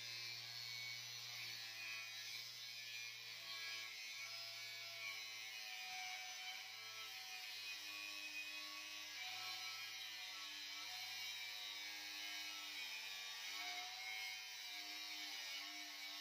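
Angle grinder with a cutting disc cutting through a steel bar: a steady motor whine with grinding noise, its pitch wavering slightly.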